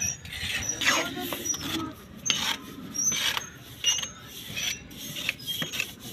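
Steel mason's trowel scraping and spreading wet cement mortar over brick, in repeated strokes about a second apart.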